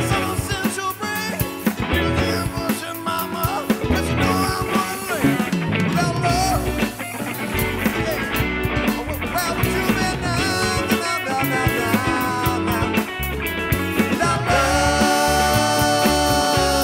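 Rock band playing an upbeat groove with drums, guitar and a singing voice. Near the end, sustained held chords come in and the music grows a little louder.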